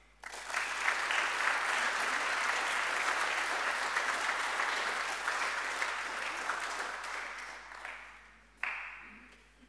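Church congregation applauding. The clapping starts just after the start, holds steady, then dies away about eight seconds in. A brief short sound comes near the end.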